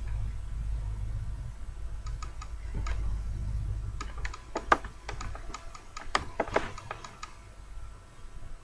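Irregular small clicks and crackles from hands braiding hair, over a steady low hum that fades about halfway through.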